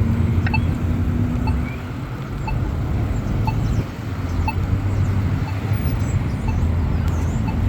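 Polara iDS2 accessible pedestrian signal locator tone beeping about once a second over steady road traffic.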